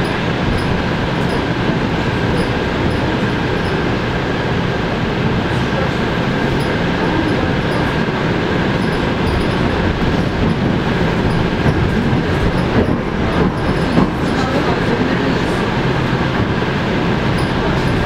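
Electric commuter train running at speed, heard from inside the carriage: a steady rumble of wheels on rail with a thin steady whine, and a few sharper knocks late on.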